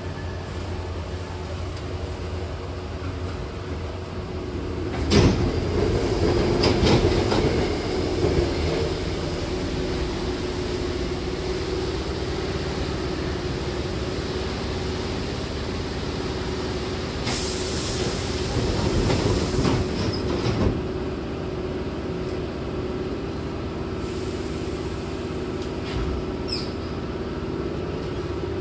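Hankyu train's sliding passenger doors at a station stop: a sudden loud burst about five seconds in as the doors open, then the car's steady hum. Near the end come a hiss and a short thud as the doors close again.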